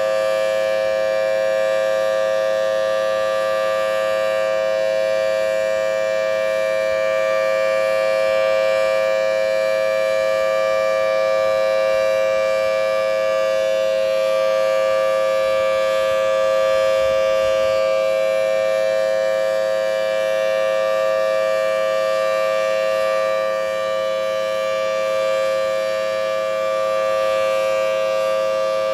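Single-phase Federal Signal Thunderbolt 1000T outdoor warning siren sounding a loud, steady two-tone chord at full pitch. The head has failed to rotate, so the sound holds an even level instead of rising and falling as the siren turns.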